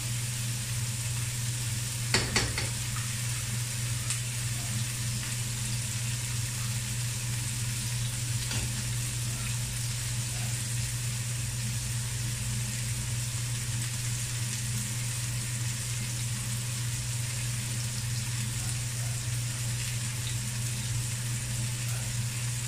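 Sliced onions and tomatoes sizzling in oil in a nonstick wok, over a steady low hum, with a brief clatter of clicks about two seconds in.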